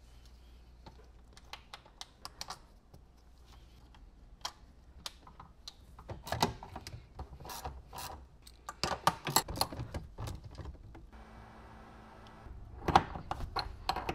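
Scattered clicks, knocks and rattles of hand tools and metal parts being handled while fitting a short shifter and its cables, busiest about six to ten seconds in and again near the end, with a brief steady whir about eleven seconds in.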